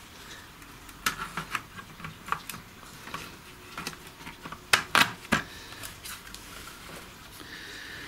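Scattered sharp plastic clicks and knocks as the opened Fluke 1652 tester's circuit boards and yellow plastic case are pressed back together by hand, the loudest few coming about five seconds in.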